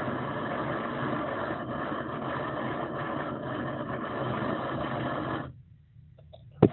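Torch flame burning with a steady rushing noise, heating a stuck faucet cartridge to melt its plastic loose. It cuts off sharply about five and a half seconds in, and a sharp knock comes near the end.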